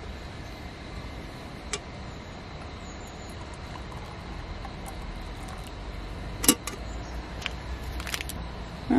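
Hot water poured from a small camping kettle into an enamel mug over a steady hiss, with a sharp knock about six and a half seconds in and a few lighter clicks near the end as the kettle is set down.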